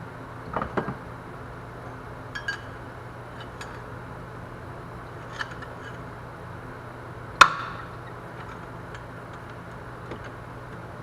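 Hand tools and loose metal parts knocking and clinking during an engine teardown: a few scattered knocks and light ticks, the loudest a single sharp metallic clink with a brief ring about seven seconds in, over a steady low background hum.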